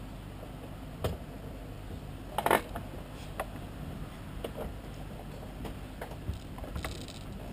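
Scattered light taps and clicks on the parked car, with a sharp knock about a second in and a louder clatter about two and a half seconds in, over a low steady hum.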